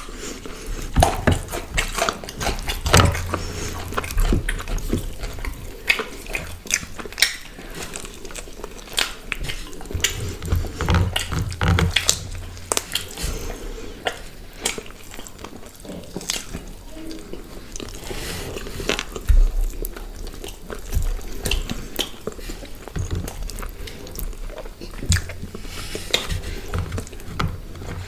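People eating grilled chicken and paratha close to the microphone: wet chewing, biting and tearing, heard as many irregular clicks and smacks with the occasional low bump.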